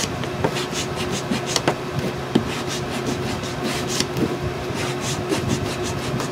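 Hand sanding block rubbed over a painted chipboard box in quick, irregular back-and-forth strokes, each a short dry scratch. The sandpaper is clogged and worn down.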